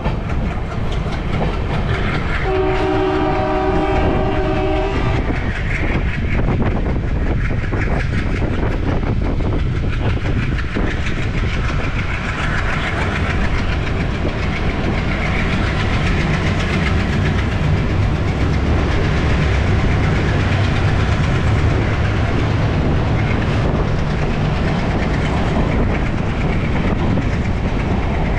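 A passenger train running alongside a freight train of petroleum tank wagons: steady rumble and wheel clatter on the rails. A train horn sounds for about two and a half seconds, starting a couple of seconds in.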